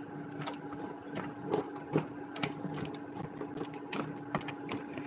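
Mussels in their shells being stirred in a simmering soup pot with a spatula: irregular clicks and clacks of shells knocking together and against the pan, over a steady low hum.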